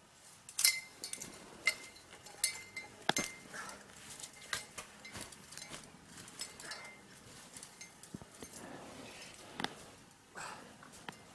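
Sharp metallic clinks and knocks from a steel leg-hold fox trap being handled and freed from a caught fox, densest in the first few seconds, then scattered clicks and footsteps in deep snow.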